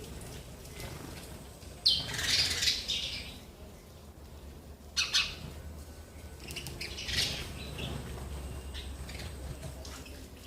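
Sparrows chirping and fluttering, in three short, sudden bursts about two, five and seven seconds in.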